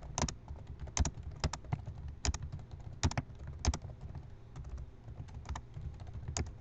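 Fast typing on a computer keyboard: an irregular run of key clicks, some strikes sharper and louder than the rest.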